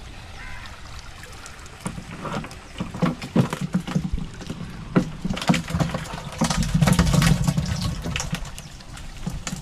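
A bamboo fish trap being emptied into a plastic jerry can: water and fish splashing in, with knocks against the hollow plastic. The heaviest splashing comes a little after the middle.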